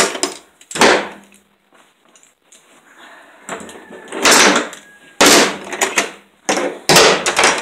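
Metal hand tools, locking pliers among them, clanking as they are pulled from a steel ammo can and set down on a concrete floor: about four loud clatters with quieter rummaging between.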